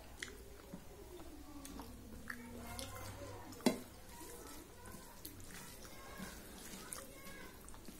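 Wet squishing and small clicks of a hand mixing rice and dal on a steel plate, with one sharp tap against the plate about halfway through.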